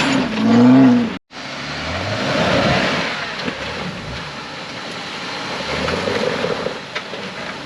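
An off-road vehicle's engine running, with a sudden brief dropout about a second in.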